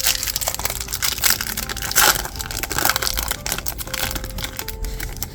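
Crinkling and rustling of a trading card pack's foil wrapper being handled and opened by hand, an irregular run of crackles.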